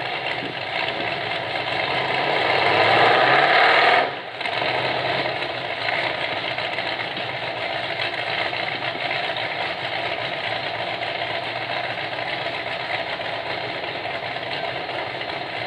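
Rock-crawling buggy's engine running, rising in revs and loudness over the first few seconds, then dropping off abruptly about four seconds in and idling steadily for the rest.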